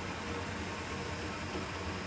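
Pinacho S-90/260 lathe running with its longitudinal power feed engaged: a steady mechanical hum and whir from the machine as the carriage travels along the bed.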